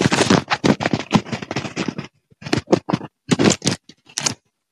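Rustling and scraping noises: a dense run of bursts for about two seconds, then a handful of shorter ones.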